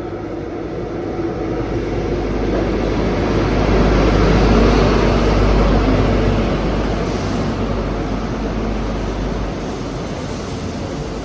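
ScotRail HST (InterCity 125) train running through: diesel power car engine and wheel-on-rail noise rising to its loudest about four to five seconds in, then easing off, with a deep rumble that drops away near the end.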